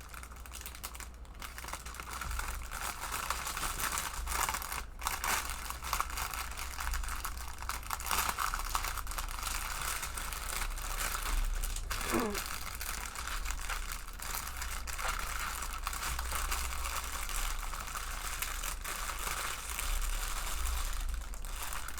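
Plastic packaging crinkling and rustling continuously as it is handled and pushed back into a box.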